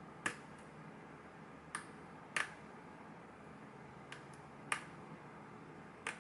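A lock being picked: about seven short, sharp clicks at irregular intervals as the pick and tension tool work the lock.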